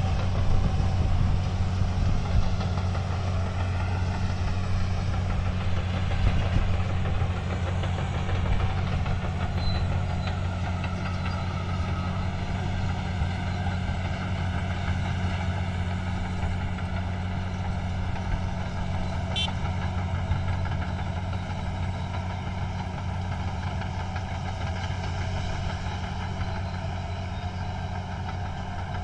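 Heavy engine of road-construction machinery running steadily with a deep hum. Its pitch wavers over the first few seconds and then holds even.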